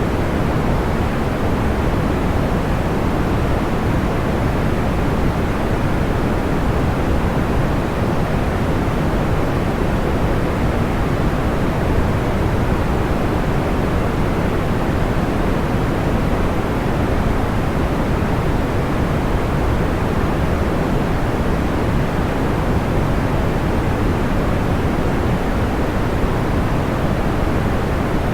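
Steady, unchanging soft white noise, a smooth hiss weighted toward the low end, like a muted rushing sound.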